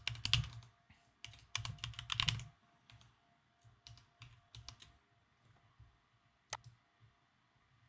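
Computer keyboard typing, with quick runs of keystrokes over the first two and a half seconds, then a few scattered keys, and a single sharper click near the end.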